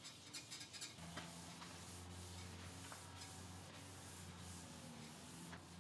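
Faint rubbing of a rag wiping white gel stain across a bare, bleached wood tabletop, with a few small ticks, over a low steady hum.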